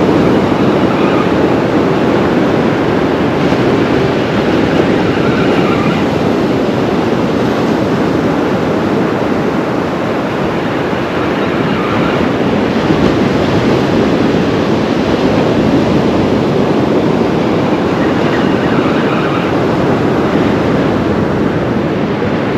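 Surf breaking and washing up a beach in a loud, steady, unbroken wash of noise.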